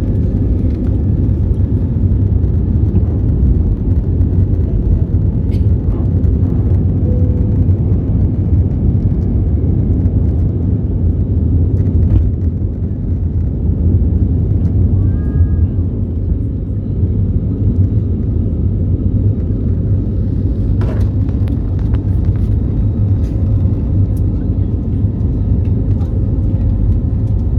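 Steady low rumble of an Airbus A320 in motion, heard from inside the cabin, with a faint constant hum and a few light clicks.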